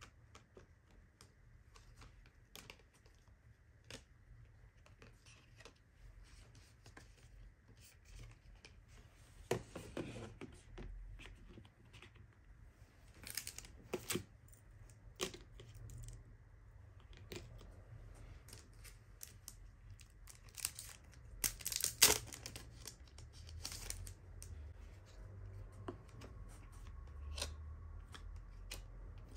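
Photocards and paper inclusions being handled and laid out: light rustling, sliding and tapping of card and paper, with a louder crisp handling sound about 22 seconds in.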